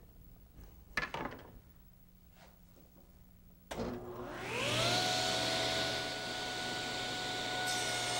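Table saw switched on with a click, its motor spinning up over about a second to a steady whine and running free with no wood yet being cut. A light knock comes about a second in, before the start.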